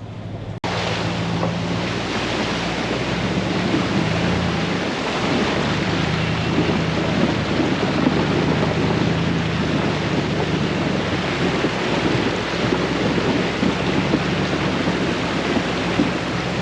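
A vehicle driving, its engine a steady low hum under a constant rush of wind and road noise.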